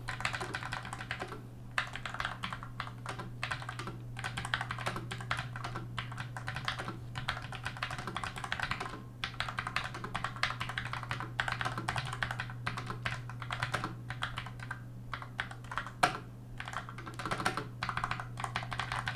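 Continuous, irregular typing on an Armaggeddon SMK12R keyboard with Outemu low-profile Black switches: linear, heavier switches with no tactile click, so each keystroke gives only a clack. A steady low hum runs underneath.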